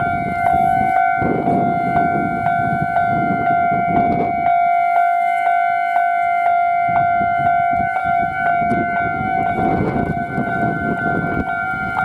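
Japanese railway level-crossing warning bell ringing, a steady electronic clang repeating about two to three times a second. A lower rumbling noise sits under it for the first few seconds and comes back near the end.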